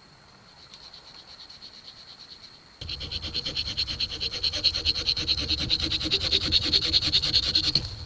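Swiss Army knife sawing through a green sapling stem in quick, even back-and-forth strokes. The sound is faint at first, then turns close and loud from about three seconds in.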